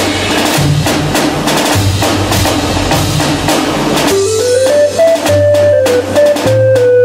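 Upbeat instrumental music with a drum beat and a bass line; a simple stepping melody comes in about four seconds in.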